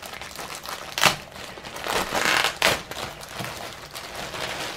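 Packaging being handled and unpacked: irregular crinkling and rustling, with a sharp crackle about a second in and another a little before the three-second mark.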